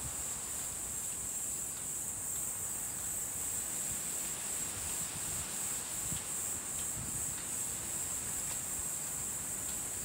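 Insects singing in one steady, high-pitched drone, over a low, uneven rumble of wind.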